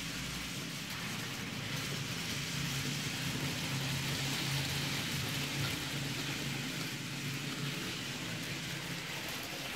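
Model trains running on the track: a steady rolling hiss of wheels on rails with a low electric motor hum underneath, a little louder in the middle.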